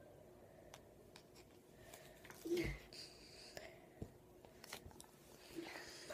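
Quiet room with faint handling noise: scattered small clicks and knocks, and two brief murmured voice sounds, about two and a half and five and a half seconds in.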